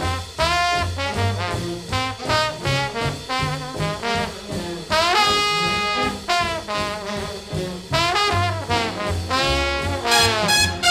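Background music: an up-tempo instrumental jazz passage, with saxophone and brass playing quick runs over a bouncing bass and no singing.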